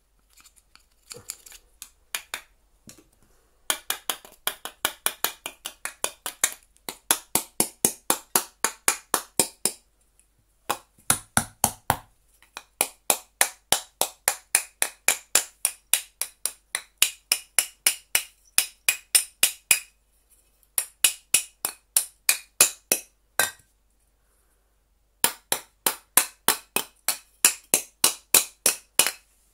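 Runs of quick hammer blows, about three to four a second with short breaks, striking the metal fan assembly of a Miele vacuum cleaner motor being knocked apart.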